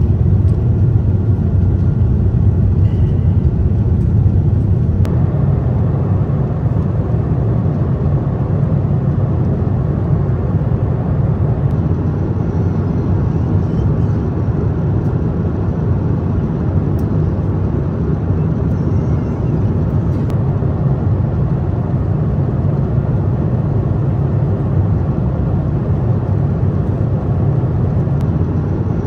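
Steady low drone of an Airbus A350-900 cabin in cruise: airflow and engine noise, with a few faint clicks.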